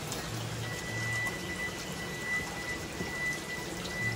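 Steady rain falling, with a thin steady high tone running through it from about half a second in.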